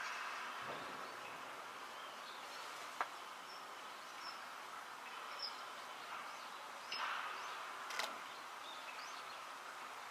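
Baseball bat striking pitched balls in batting practice: two sharp cracks about five seconds apart, the second the louder, over a steady background hiss.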